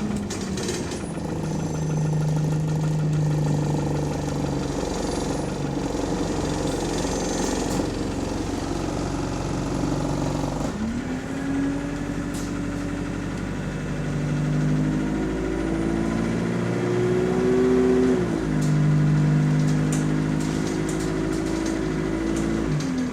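Bus diesel engine heard on board. It runs steadily for about ten seconds, then revs up at about eleven seconds and climbs steadily as the bus accelerates. The pitch drops sharply at an automatic gear change at about eighteen seconds, then holds steady and falls away near the end. Light rattles come from the bus body.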